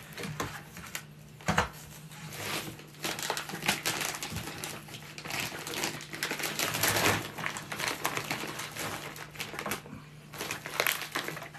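Plastic bags rustling and crinkling in irregular handling, with small clicks and knocks, as boilies are packed into bags.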